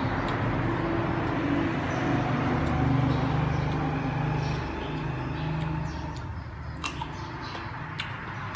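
A motor vehicle engine running steadily, fading after about five seconds, with a few sharp crunches near the end as firm green June plums are bitten and chewed.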